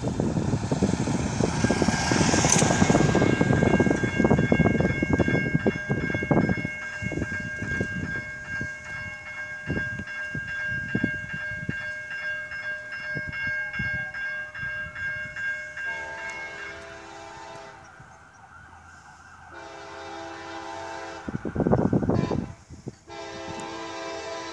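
A van drives past with a loud rush of road noise, followed by a steady high ringing tone. From about two-thirds of the way in, a CSX locomotive air horn sounds its multi-note chord in long blasts for the grade crossing: two long blasts, then a third that begins near the end.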